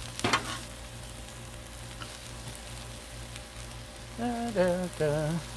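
Diced onion, celery and peppers sizzling steadily on a hot Blackstone flat-top steel griddle. A metal spatula scrapes briefly across the griddle top just after the start.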